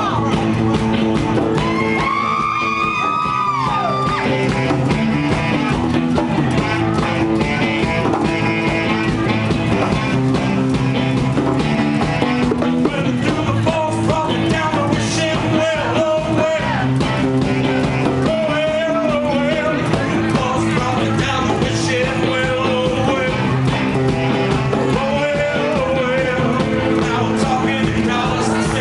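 Live rock band playing: guitar and drums with a sung vocal line over them. A high sliding, bending line rises and falls about two to four seconds in, and long held wavering notes come later on.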